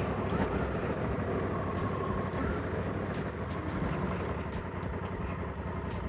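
2020 Honda Africa Twin CRF1100L's parallel-twin engine running steadily while riding at road speed, with wind rushing over the microphone.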